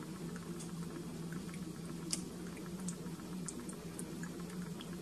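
Meat sauce being spread over penne with a spatula: soft wet squishing with many small scattered clicks, over a steady low hum.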